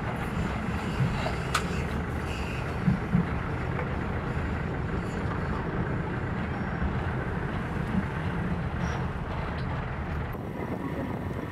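Jeepney engine running and road rumble, heard from inside the passenger cabin, with a couple of sharp knocks or rattles in the first few seconds.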